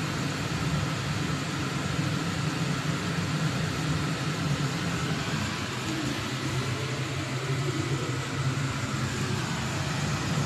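Pieces of dough deep-frying in hot oil in a karahi, a steady sizzle, over a steady low hum.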